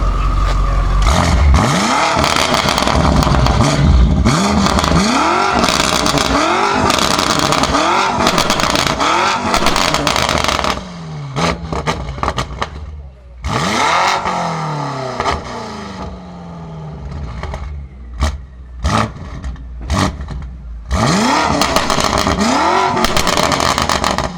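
BMW M5 F90's twin-turbo V8 through a Supersprint exhaust, revved hard in repeated blips, each rising and falling in pitch, about one a second for the first ten seconds. After that come pauses in which the exhaust crackles and pops with sharp cracks, broken by two more bursts of revving.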